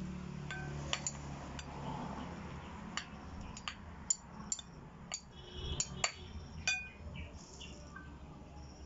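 Metal spoons clinking against a glass bowl and a steel pot while boiled cassava is scooped out, about a dozen sharp, irregular clinks.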